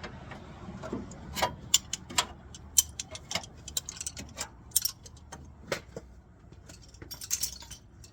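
Irregular sharp clicks and light metallic clinks of hand work under a truck's hood, such as connectors being snapped in and tools or parts being handled, over a low steady hum.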